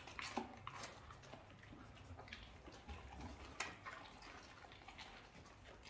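Dogs chewing and mouthing handed pieces of fruit and vegetables: faint, scattered wet clicks and crunches, with a few sharper ones.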